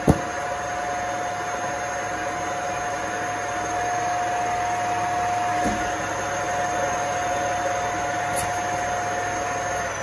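Dyson cordless stick vacuum running steadily with a high motor whine while sucking dirt out of a robot vacuum's disposal bag, with a sharp click at the start; the motor shuts off near the end.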